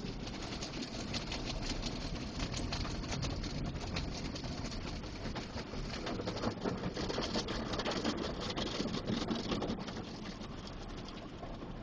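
Automatic car wash heard from inside the car's cabin: a steady rush of water spray with many small patters and knocks against the body and windows, easing slightly near the end.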